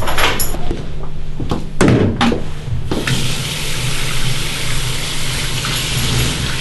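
A thump about two seconds in, then a bathroom sink tap running, water pouring steadily into the basin from about three seconds in.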